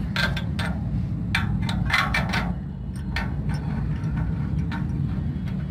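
Sharp clinks and knocks of metal tools and parts being handled, about eight of them in the first three seconds, some ringing briefly, over a steady low rumble.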